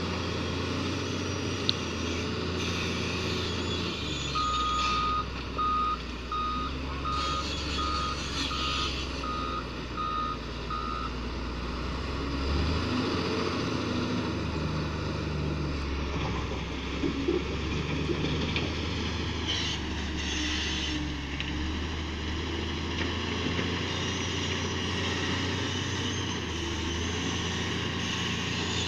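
Komatsu WA300 wheel loader's diesel engine running under load, its note shifting as the machine moves. About four seconds in, the loader's reversing alarm sounds one longer beep and then about a dozen short beeps, about two a second, for roughly six seconds.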